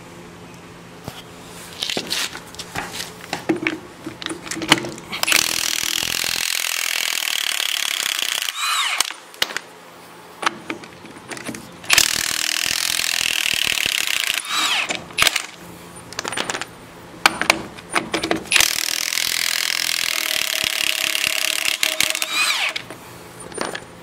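Milwaukee M18 3/4-inch cordless impact wrench hammering the rusty wheel nuts off a forklift's front wheel in three long bursts of several seconds each, the motor winding down after each one. Clanks and knocks of the socket on the nuts come between the bursts.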